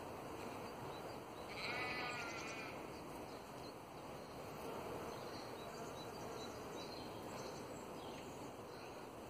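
A sheep bleats once, a wavering call of about a second, over a steady background of outdoor noise, with a few faint bird chirps.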